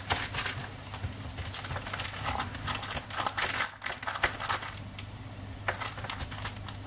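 Baking paper crinkling and soft, sticky dough squishing under hands pressing a cheese-and-egg dough flat on a baking tray, in irregular short scrapes that thin out after about five seconds. A low steady hum runs underneath.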